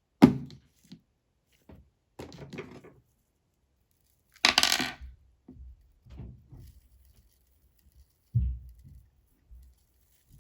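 Handling noises: a sharp knock, then rattling and clinking of small hard objects, loudest about halfway through, and a dull thump near the end.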